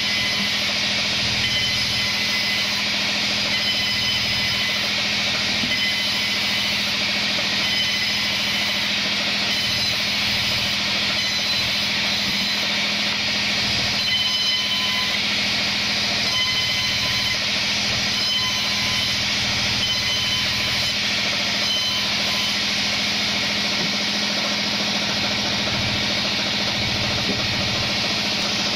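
Sawmill band saw running steadily with a constant hum, its blade resawing kenanga wood boards fed along the fence.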